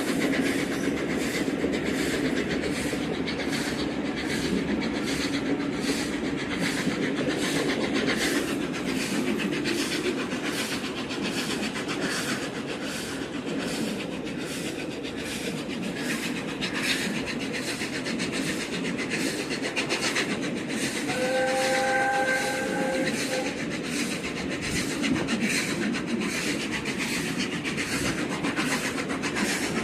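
Passenger train hauled by the steam locomotive Tornado, heard from the coach behind the engine: steady running noise with a rhythmic clatter of wheels over the rail joints. About two-thirds of the way through, a whistle sounds once as a chord for about two seconds.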